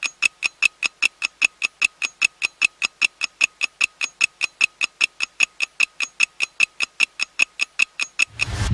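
Rapid, perfectly even mechanical ticking, about five ticks a second, each tick identical. Near the end the ticking stops and electronic music comes in.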